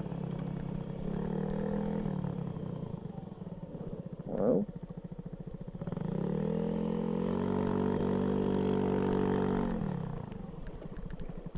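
Honda Zoomer's small single-cylinder four-stroke engine, breathing through an old Moriwaki muffler, revving up and easing off as the scooter rides across rough grass: a short rise and fall, then a longer held run from about six seconds that drops away near the end. A brief burst of noise about four and a half seconds in is the loudest moment.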